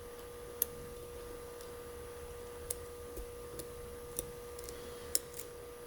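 Lock pick working the pins of a five-pin Cupples mortise cylinder during single-pin picking, searching for the binding pin: about half a dozen small, scattered clicks over a steady hum.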